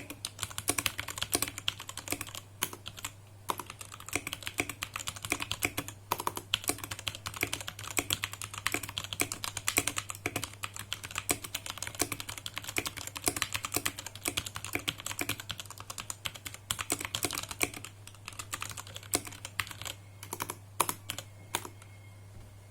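Typing on a mechanical keyboard with Outemu Brown tactile switches: a fast, dense run of key clacks with short pauses, thinning out to scattered keystrokes near the end. A steady low hum runs underneath.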